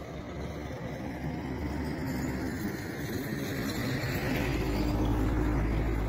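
A motor vehicle's engine running and growing steadily louder as it approaches, with a deep rumble coming in strongly near the end.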